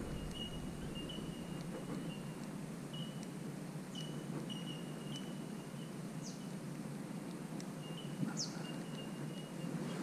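Birds calling in the riverside trees: short notes repeated at one pitch, with a few quick, sharp high chirps, over a low steady background hiss.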